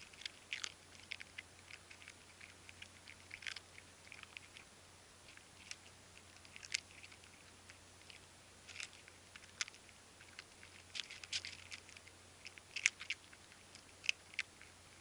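Stray cats chewing their food: irregular, uneven sharp clicks of eating, a few louder than the rest, over a faint steady low hum.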